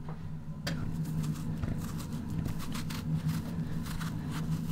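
Kitchen knife paring the skin off a pumpkin slice, with faint short scraping cuts and a click about a second in, over a steady low hum.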